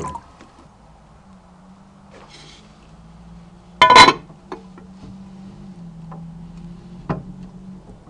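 A glass Pyrex dish being handled in an aquarium of water: faint water sloshing and drips, then one loud ringing glass clink just before four seconds in, and a few small knocks, over a steady low hum.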